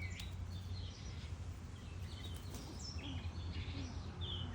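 Songbirds chirping, many short scattered call notes over a steady low background hum.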